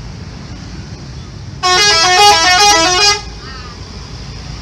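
A tour bus's telolet horn sounding loudly for about a second and a half near the middle, a quick melody of several horn tones stepping up and down. A steady low rumble runs underneath.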